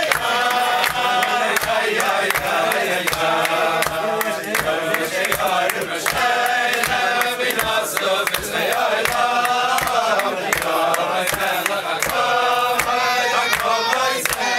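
A crowd of men singing together in unison, with a steady beat of hand-clapping.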